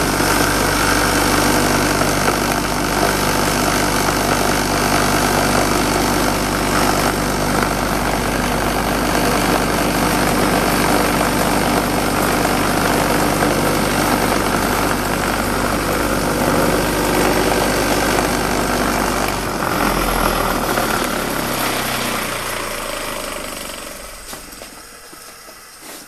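Old bench grinder with a steel plate bolted off-centre on its shaft, running as a concrete vibrator: a loud, steady hum as the unbalanced weight shakes a mould of wet concrete to drive out the air. About twenty seconds in it is switched off and winds down, its pitch falling as it fades over a few seconds.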